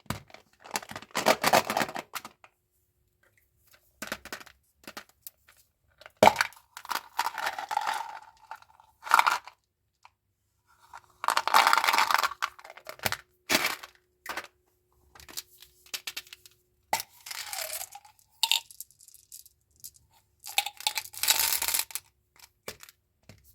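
A chewing gum pack's wrapper being torn open and handled, tearing and crinkling in short irregular bursts with silent gaps between.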